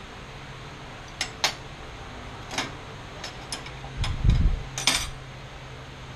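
Metal tools and parts clinking as they are handled, half a dozen short sharp clinks with a dull thump about four seconds in, over a steady low shop hum.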